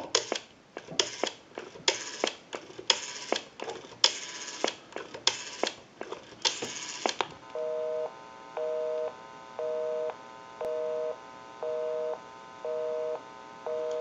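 Stromberg-Carlson candlestick telephone's rotary dial being turned and spinning back for each digit, about seven times. Then, about seven and a half seconds in, a busy signal: a two-tone beep pulsing about once a second, showing the called line is engaged.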